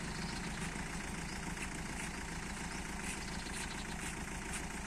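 Engine of a pickup-mounted borewell rig running steadily while the submersible pump is hauled up out of the bore, with faint irregular ticks above the engine.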